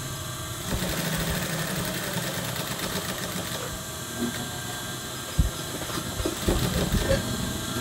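Industrial lockstitch sewing machine running, stitching a welt strip onto a garment panel; its steady hum steps up about a second in, with a single knock a little past halfway.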